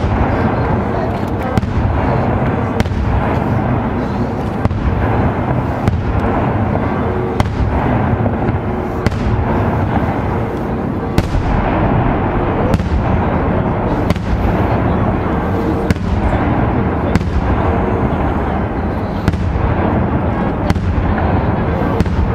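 Daytime fireworks display: a dense, unbroken barrage of shell bursts and firecracker reports over a continuous rumble, with sharp louder bangs standing out every second or two.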